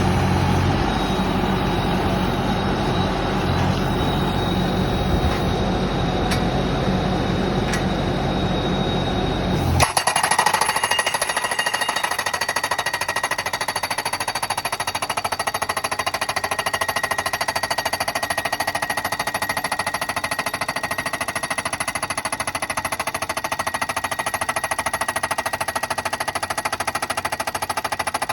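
Everstar HXR-5 pile driver hammering a pile, a fast, steady run of rapid blows. For the first ten seconds a deep low rumble runs under the hammering; it cuts off abruptly about ten seconds in, leaving the sharper, higher hammering.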